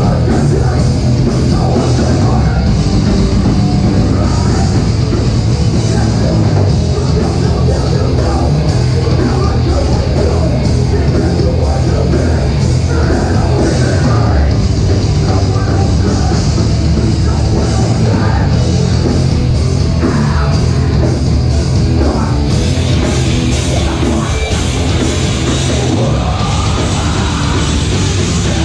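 A metalcore band playing live with distorted guitars and drums, loud and unbroken throughout.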